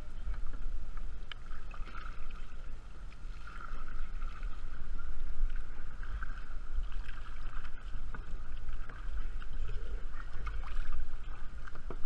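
Water splashing and lapping around a kayak being paddled, with a steady low rumble of wind on the microphone and scattered short splashes.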